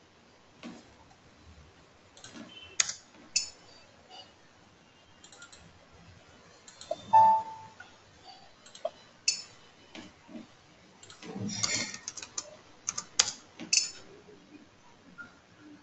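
Computer keyboard typing and mouse clicks: scattered keystrokes with a busier run of them in the last few seconds, and one short tone about halfway through.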